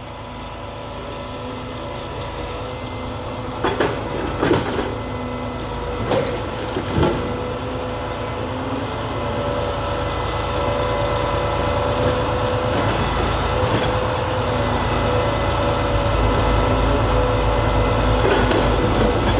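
Truck-mounted knuckleboom log loader running, its engine and hydraulic pump giving a steady whine as the grapple lifts oak logs off the trailer. A few knocks of logs bumping together come about four to seven seconds in, and the drone grows slightly louder near the end.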